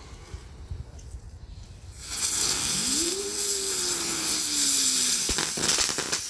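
Crackling ground bloom flower firework: a faint fuse burns, then about two seconds in the firework ignites with a loud hiss of sparks. As it spins, a whine rises and then slowly falls, and sharp crackling pops start near the end.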